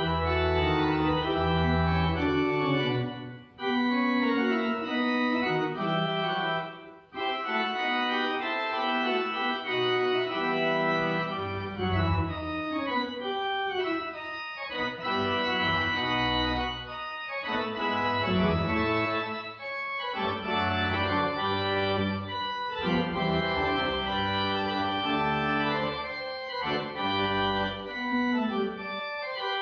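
Church pipe organ playing sustained chords over low held pedal notes. The sound breaks off briefly between phrases about three and a half and seven seconds in.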